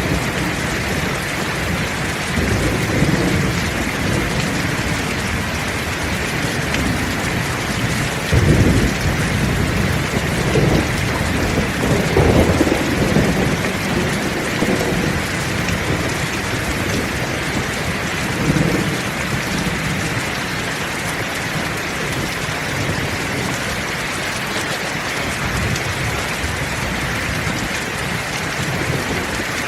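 Heavy rain falling steadily, with rolling thunder rumbling low; the loudest claps come about eight and twelve seconds in, with a smaller one near nineteen seconds, and the thunder dies away over the last third while the rain keeps on.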